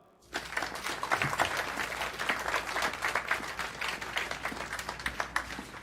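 Audience applauding, starting suddenly and dying down slightly toward the end.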